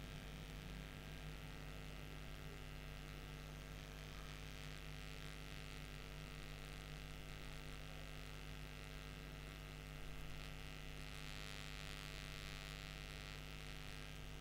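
Steady electrical mains hum with faint hiss, the background noise of a quiet recording with no speech.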